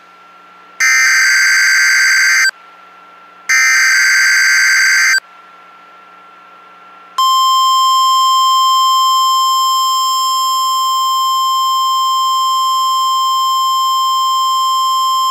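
Emergency Alert System SAME header: two loud bursts of screechy digital data tones, each about 1.7 s long and a second apart. About seven seconds in, a long, steady single-pitch alert tone begins. It is the NOAA Weather Radio warning alarm tone that opens a Tornado Watch alert.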